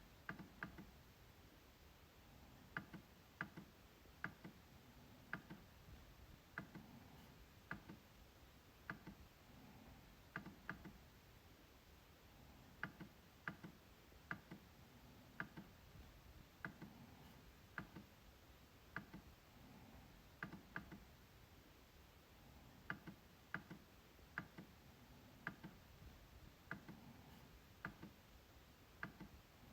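MacBook trackpad clicking, a sharp click about once a second with some in quick pairs like double-clicks.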